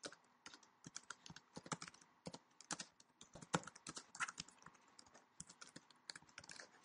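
Typing on a computer keyboard: a faint, irregular run of key clicks, several a second.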